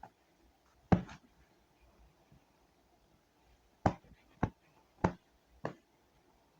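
Five short, sharp taps or clicks against a quiet room. The loudest comes about a second in. Four more follow about half a second apart from around four seconds in.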